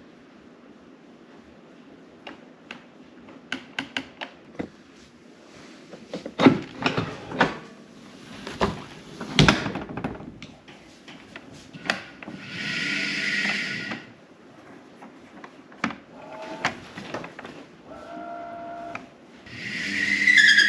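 Scattered clicks and knocks from handling a trolling motor's foot-control cable and fittings. Partway through come two short bursts of whirring and a briefer steady tone: the trolling motor running for a moment with no propeller fitted.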